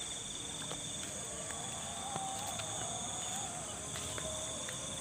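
Steady chorus of insects with a continuous high-pitched trill, with a faint wavering call in the middle.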